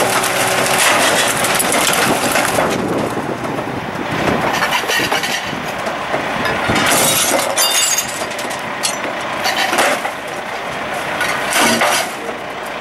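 Hard waste being thrown into the steel hopper of a Superior Pak rear-loader garbage truck: loud clattering and crashing, with a sharp breaking crash about seven seconds in and more crashes near ten and twelve seconds. The truck's engine runs underneath.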